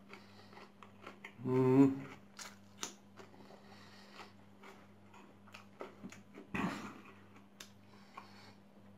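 Faint clicks and rustles of hands handling food, with a short hummed vocal sound about one and a half seconds in and a louder crackly rustle, like bread crust being handled, about six and a half seconds in.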